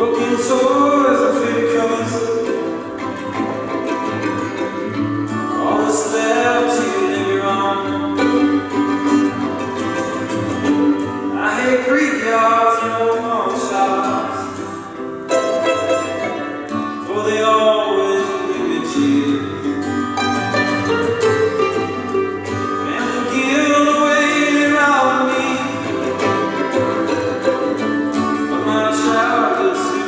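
Live folk song: a violin plucked like a small guitar, an acoustic guitar strumming, and a man singing the melody.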